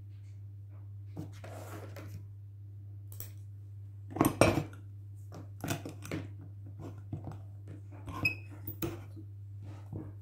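Metal tools handled on a table: irregular clicks and clacks from locking forceps and a metal jig with a toggle clamp, the loudest cluster a little after four seconds in, over a steady low hum.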